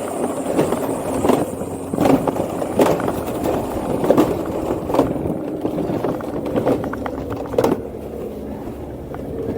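Mountain coaster sled running along its track: a steady wheel rumble with repeated clacks and knocks. A sharp knock comes near the end, after which the rumble eases.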